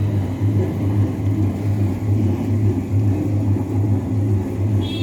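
Paint mixing machine running with a loud, steady low hum that pulses about twice a second.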